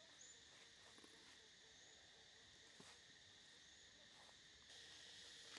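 Faint steady chirring of insects, with a few soft clicks and scrapes from a cleaver slicing a fish on a wooden chopping block.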